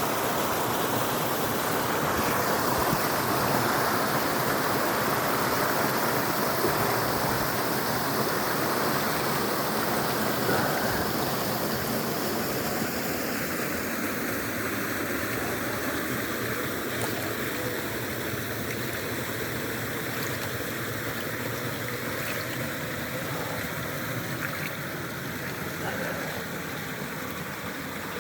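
Steady rushing and splashing of water falling in a small warm-spring waterfall and stream, growing gradually quieter over the second half.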